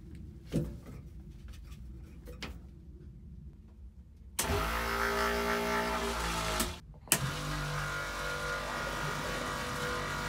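Boat's electric wash-down pump switched on: its motor runs with a steady hum for about two seconds, cuts out, then starts again with a click and keeps running.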